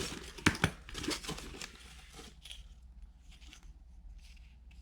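Packaging being handled: rustling and crinkling, with a few sharp knocks in the first second and a half, then fainter handling noise.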